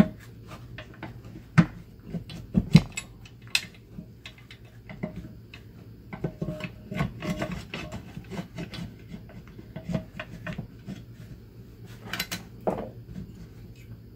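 Irregular metal clicks, clinks and light knocks as the master cylinder assembly of a UFP A-60 trailer brake actuator is worked by hand into its steel housing, with some rubbing between them; the sharpest knocks come about a second and a half in, near three seconds in and again near the end.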